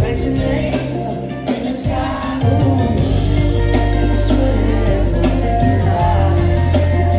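Live soul band playing with a male lead vocalist singing. Electric guitars, keyboards and drums sound over steady held bass notes, heard from the audience in a concert hall.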